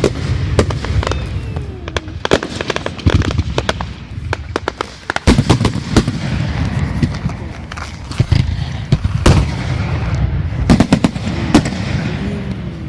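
Fireworks display: a rapid string of bangs and crackling reports over a continuous low rumble, with a few louder booms among them.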